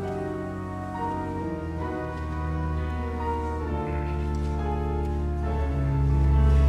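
Church organ and piano playing slow, held chords over a deep bass, swelling louder near the end.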